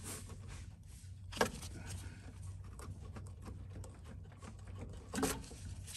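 Plastic air filter housing on a lawnmower engine being handled and pressed into place: two sharp clicks or knocks, about a second and a half in and near the end, over a steady low hum.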